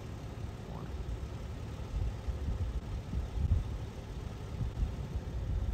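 Low rumble of a vehicle engine idling, growing uneven and stronger from about two seconds in.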